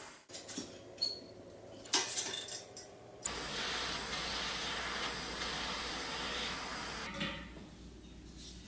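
Light metallic clinks and taps as a pressed-steel toy truck part is handled, then a handheld torch hisses steadily for about four seconds while its flame heats a thin sheet-steel tab, cutting off suddenly.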